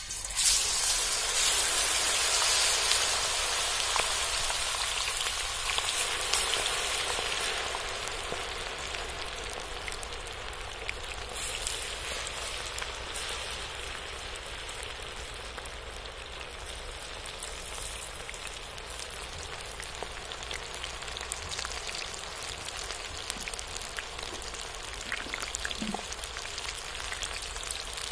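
Batter-coated ivy gourd pieces deep-frying in hot oil in an iron kadai: a loud sizzling hiss that starts suddenly as the pieces go in, loudest over the first few seconds, then settles to a steadier sizzle with scattered small pops.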